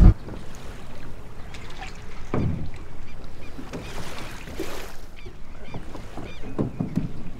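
Lake water lapping and sloshing against a moored canoe's hull and a wooden dock in irregular soft strokes, with a few short high chirps partway through.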